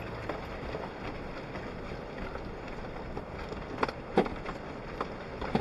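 Suzuki Jimny driving over rough off-road ground, heard from inside the cab: a steady rumble with sharp knocks and rattles as it jolts over bumps, the loudest a few about four seconds in and another near the end.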